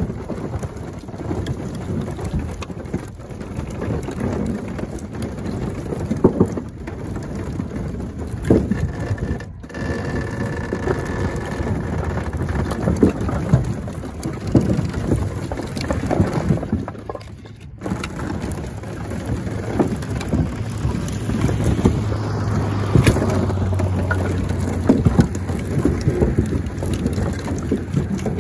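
Loose split firewood clattering and rumbling as a load of pieces slides along a pickup bed on a crank-pulled unloader mat and tumbles off the tailgate, with irregular knocks of wood on wood throughout. A low hum comes in about halfway through.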